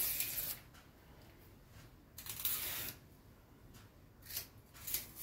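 Fibrous strings being pulled off a celery stalk: short rasping, tearing strokes, the longest a little past two seconds in, with brief ones near the end.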